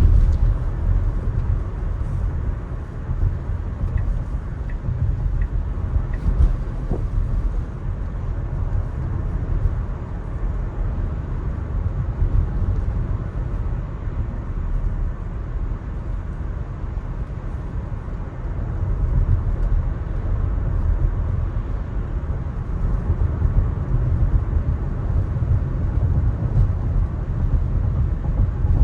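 Steady low rumble of an electric car's tyres running on a rain-wet road, with no engine note, holding an even level throughout.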